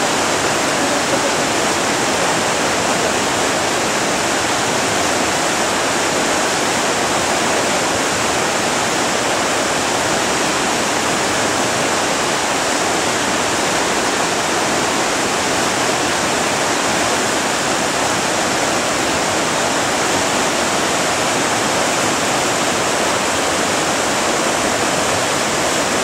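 Rushing water of a mountain waterfall and rocky stream: a steady, unbroken rush that stays loud and even throughout.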